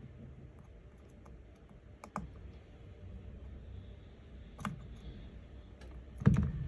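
Small hand tools clicking and tapping against a phone's parts during a screen repair: a few sparse, separate clicks, with the loudest knock and a short cluster of clicks near the end.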